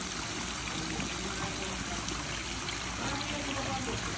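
Pool water splashing and sloshing as a swimmer strokes through it and stands up, heard close at the waterline.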